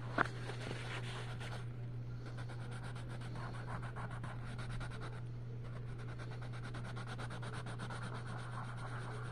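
Coloured pencil scratching rapidly back and forth on coloring-book paper, shading in petals, over a steady low hum. A single sharp click just after the start.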